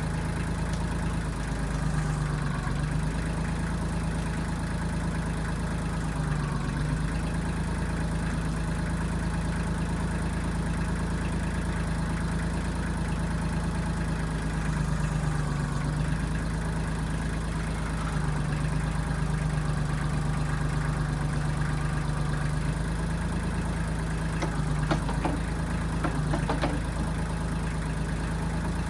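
A 1995 Kubota backhoe's diesel engine running steadily, its pitch sagging briefly a few times. A few sharp knocks come near the end.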